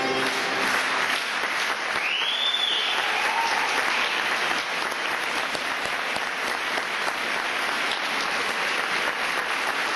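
Audience applauding steadily, a dense even clapping that runs on after the last held notes of the music fade out in the first second. A brief high gliding tone, rising then falling, sounds about two seconds in.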